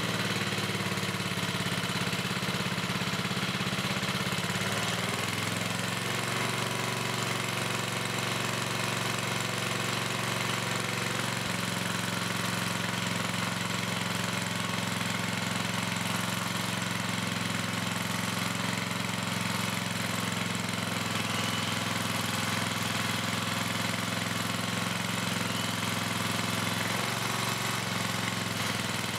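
5 hp Briggs & Stratton single-cylinder engine of a portable generator running steadily at governed speed on its freshly cleaned and rebuilt carburetor. Its pitch shifts slightly about twelve seconds in and again near the end.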